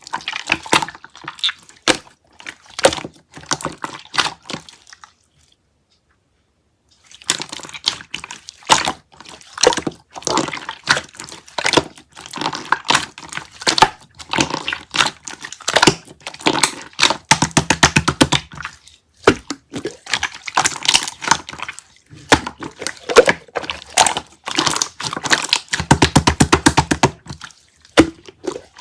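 Close-up crackling, tapping and clicking, dense and irregular, with a pause about five seconds in and two runs of fast, evenly spaced ticks later on.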